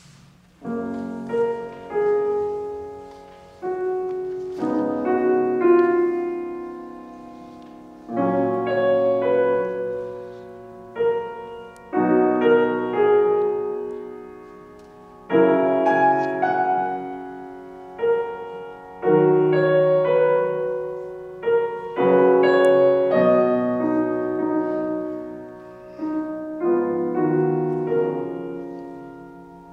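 Grand piano playing a slow classical piano introduction alone. Chords are struck every few seconds and each is left to ring and fade before the next.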